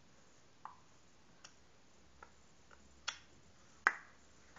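A toddler clicking her tongue about six times at uneven intervals, imitating a clock's tick-tock; the two clicks near the end are the loudest.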